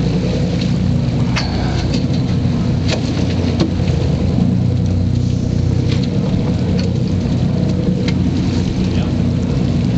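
Boat engine running steadily, a low even hum, under wind and sea noise, with scattered sharp ticks and splashes.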